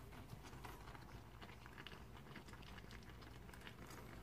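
Faint crackle of chicken and pork igado simmering in a frying pan, many small irregular pops.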